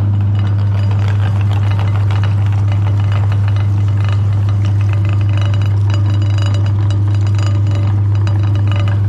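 Meat grinder running with a steady hum and a light clinking rattle throughout, grinding a Cornetto cocoa ice cream cone.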